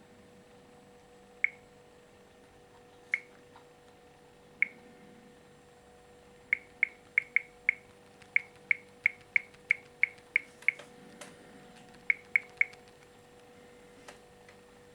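Short, high-pitched ticks, all at the same pitch. They come singly about every second and a half at first, then in a quick run of about three a second, then three close together. A faint steady hum lies under them.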